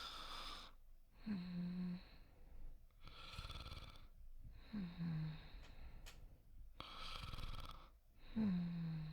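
A person snoring softly in a slow, even rhythm: a rattly snore, then a short voiced breath that falls in pitch, three breaths repeating about every three and a half seconds.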